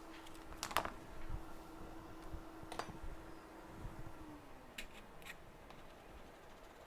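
Small repair tools being handled on a workbench: a few light clicks and taps, over a low steady hum that slides down in pitch and fades about four seconds in.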